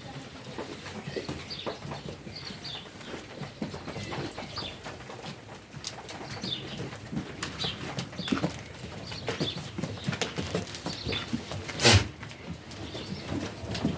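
Barn ambience around a resting flock of sheep: scattered small knocks and shuffling, with short bird chirps throughout and one loud sharp knock about twelve seconds in.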